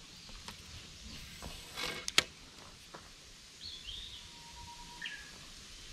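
Quiet outdoor ambience with birds chirping a few times. About two seconds in there is a short rustle and a sharp click, the loudest sound here.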